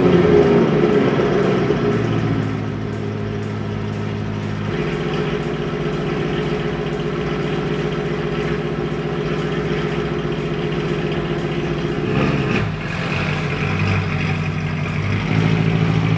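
BMW E92 M3's S65 V8 running just after a cold start, its high idle easing down over the first couple of seconds and then holding steady. Near the end the engine note grows louder as the car is backed slowly off the lift.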